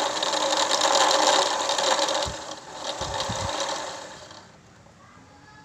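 Singer 968 portable sewing machine running fast on its electric motor, spinning the bobbin winder to fill a bobbin with thread. It slows and stops about four seconds in.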